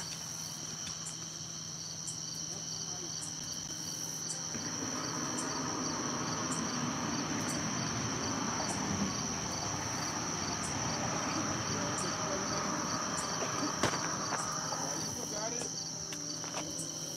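Crickets chirping steadily in a fast, high-pitched pulsing chorus. From about four seconds in until near the end, a rough rustling noise lies underneath.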